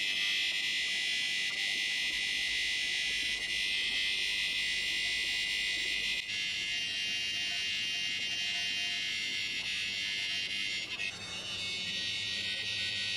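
A jet of fog or vapour hissing steadily, a high, even hiss that shifts slightly in tone about six and eleven seconds in.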